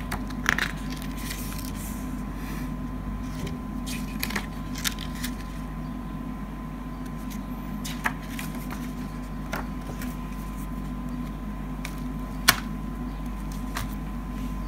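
Scattered light clicks and rustles of a plastic CD jewel case and its paper booklet being handled, with one sharper click about twelve seconds in, over a steady low hum.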